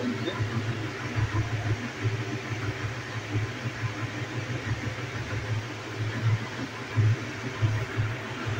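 Steady low mechanical hum with a hiss behind it, wavering in loudness.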